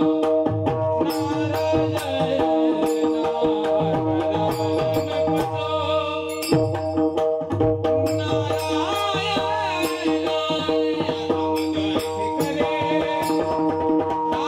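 Warkari devotional music: pakhawaj drumming in a steady rhythm over held, sustained melodic tones, with sharp percussive strikes throughout.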